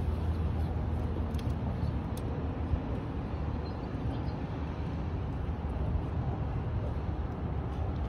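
Steady low rumble of road traffic on the bridge overhead, with one sharp crack nearly three seconds in: a driver striking a golf ball off the tee.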